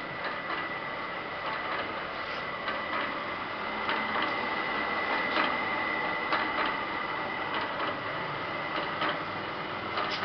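Water-jug capping machine running: a steady high whine under irregular clicks and knocks as its head presses and tightens a cap onto a large plastic water jug.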